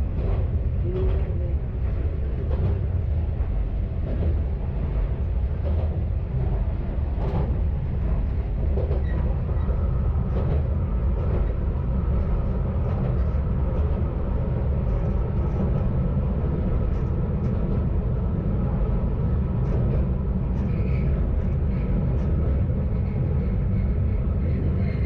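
Kanto Railway KiHa 532 diesel railcar under way, heard from the cab: a steady low engine and running drone with occasional clicks from the wheels over the track, and a faint steady whine joining about ten seconds in.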